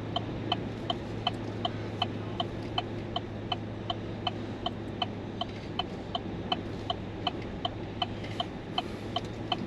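Car's turn-signal or hazard indicator clicking steadily inside the cabin, about three clicks a second in an alternating tick-tock, over a low steady hum.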